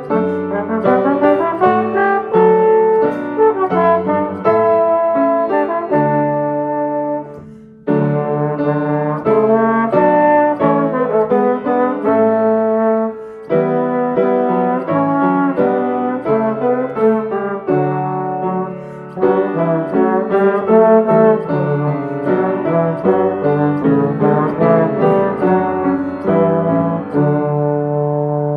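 Instrumental music, brass instruments with keyboard, playing as a postlude. It moves in phrases broken by brief pauses, the clearest a little over seven seconds in.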